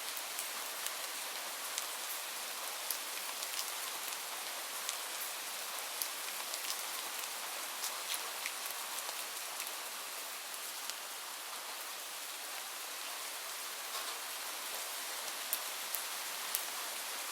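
Steady light rain falling, a continuous hiss with many individual drops ticking sharply on a surface.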